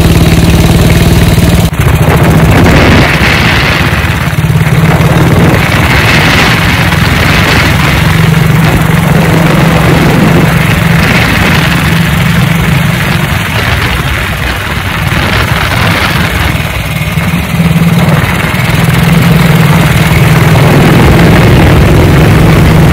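1952 BSA B31's single-cylinder four-stroke engine running while the motorcycle is ridden on the road, its note easing off and picking up again several times, with a steady rush of wind and road noise over it.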